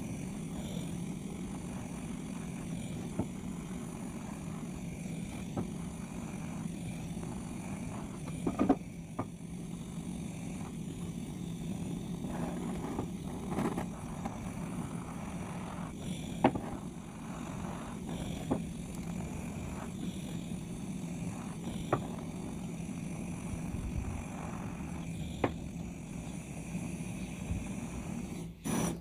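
Handheld gas blowtorch burning steadily as it scorches the edges of pine boards, with a few sharp knocks now and then. The flame cuts off just before the end.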